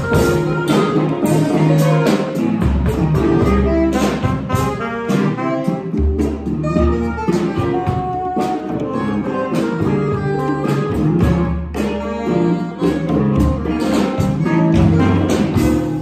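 Small free-improvisation ensemble playing together: saxophone lines and electric guitar over steady drum and percussion hits, with low bass notes held for a second or two at a time.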